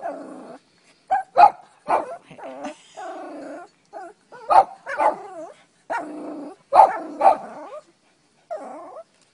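Shih Tzu whining with short yips and barks, a string of calls with short pauses between them. She is complaining and begging for a piece of beef.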